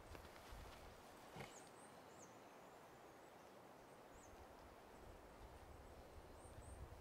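Near silence: faint outdoor hiss with a few faint, short, high bird chirps scattered through, and one soft click about a second and a half in.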